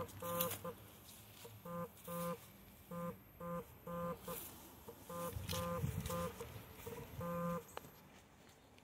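A run of about a dozen short electronic beeps at one pitch, irregularly spaced, some in quick pairs, with a longer beep near the end, like keypad tones.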